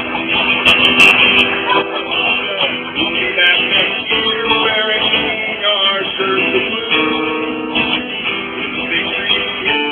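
Acoustic guitar strummed steadily as accompaniment to a man singing a song.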